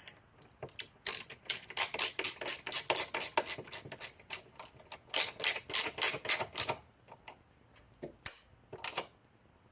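Rapid run of sharp clicks for about six seconds as a small Torx screw is driven into a BMW Z3 door panel, then two or three single clicks near the end. The installer calls it a noise the job shouldn't need to make.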